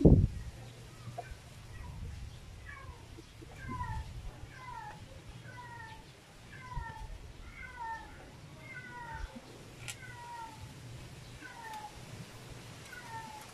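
A series of short, falling animal cries, about two a second, like a small cat mewing over and over; they start about two seconds in and thin out near the end. A loud thump right at the start is the loudest sound, and there is a sharp click a little past the middle.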